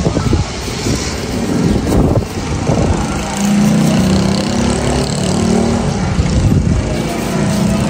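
Wind buffeting a phone's microphone outdoors, a loud uneven rumble. A steady droning hum like a distant motor joins it about three seconds in.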